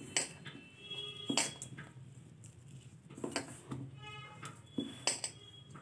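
A hand mixing dry flaxseed powder with soft jaggery in a steel bowl: quiet rustling with a few light clinks against the bowl, one of them ringing briefly about four seconds in.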